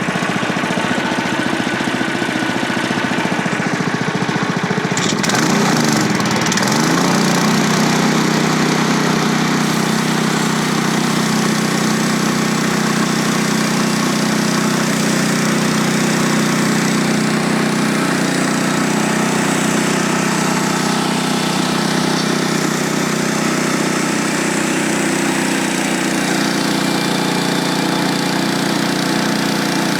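Engine of a portable bandsaw sawmill running through a cut. About five seconds in its pitch dips and comes back up, then it settles into a steady hum.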